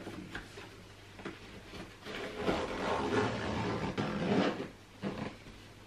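Rustling and rubbing as a pushchair seat unit's fabric and frame are handled and adjusted, starting about two seconds in and lasting about three seconds.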